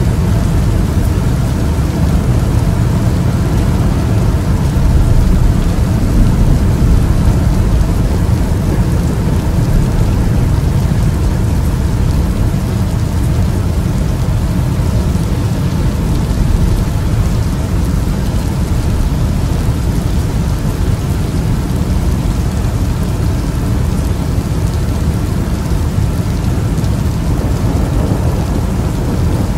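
Thunderstorm: steady rain with a continuous deep rumble underneath, even throughout with no sharp thunderclaps.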